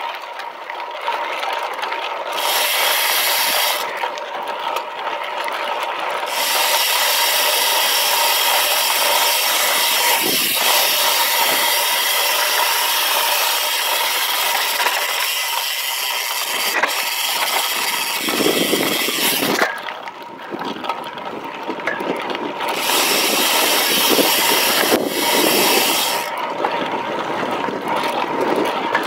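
Road bike descending a dirt fire road: tyres rolling and crunching over loose dirt and the bike rattling over the rough surface. A loud rushing hiss sits on top and drops away several times.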